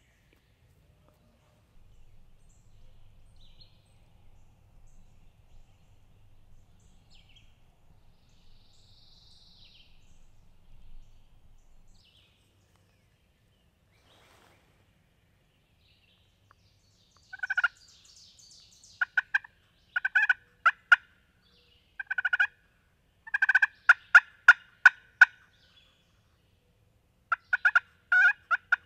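Turkey yelps made on a friction pot call worked with a wooden striker. The calls are runs of short, sharp notes that start a little past the middle and come in several series a second or two apart.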